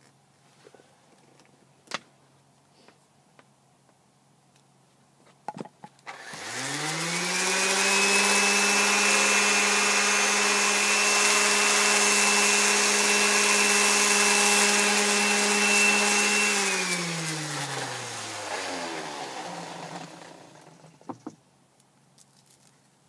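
A handheld electric orbital sander is switched on and spins up to a steady whine as it sands the wooden carving. About ten seconds later it is switched off and its pitch falls as it winds down over a few seconds. A few light knocks come shortly before it starts and just after it stops.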